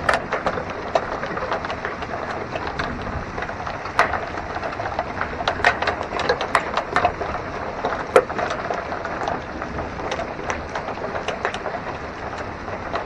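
Small hail falling with rain: a steady hiss of rain under many sharp, irregular clicks of hailstones striking hard surfaces, the loudest about four and eight seconds in.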